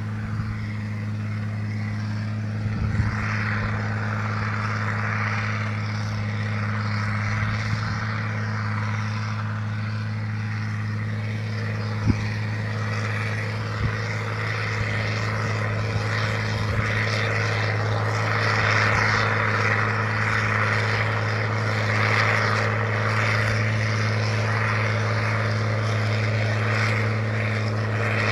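Turbocharged diesel engine of a Valtra BH 180 tractor running loud at a steady speed, a constant deep drone with a hiss above it. A few brief clicks sound over it, the sharpest about twelve seconds in.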